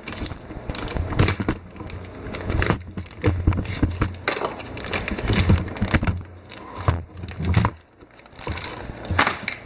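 A bag of hardware being worked open by hand, crinkling and crackling in irregular bursts with short pauses.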